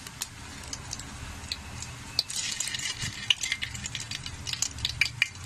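Whole spices (cumin and fennel seeds, with cloves, cardamom and cinnamon going in) sizzling and popping in hot oil in a pressure cooker. The crackle turns denser and louder about two seconds in, as fresh spices hit the oil.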